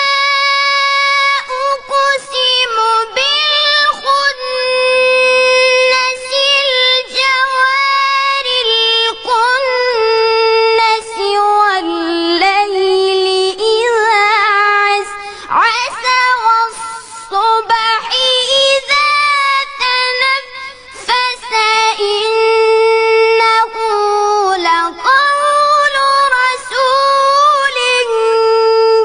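A high, child-like voice chanting Quran recitation in melodic tajweed style, holding long ornamented notes with breaths between phrases.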